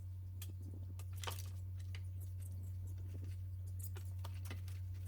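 Scattered faint, light clicks and scratches, a few to the second, over a steady low hum.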